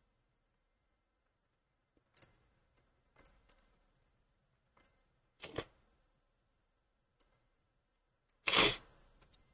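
Computer mouse clicking: a handful of scattered single and double clicks on a quiet background. Near the end comes a short, louder burst of noise, the loudest sound here.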